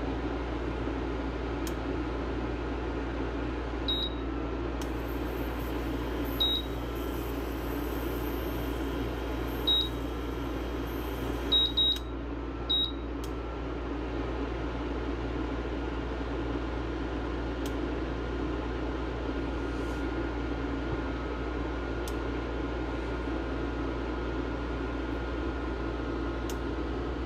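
Induction cooktop's touch controls beeping six times, short high beeps, two of them close together, over a steady fan hum.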